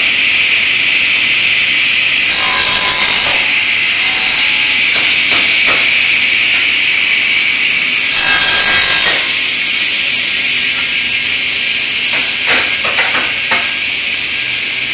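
Sliding-table panel saw running with a steady high whine, its blade cutting through wood twice, each cut lasting about a second, about two seconds in and again about eight seconds in. A few light knocks near the end.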